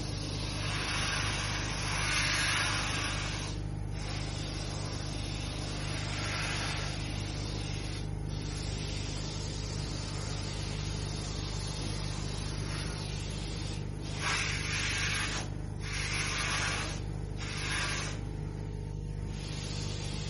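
Carpet pre-spray wand hissing as it mists cleaning solution onto the carpet, in long bursts broken by short pauses where the trigger is let go. A steady low machine hum runs underneath.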